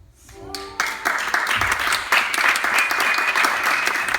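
Audience applauding: clapping breaks out about a second in and settles into steady, dense applause.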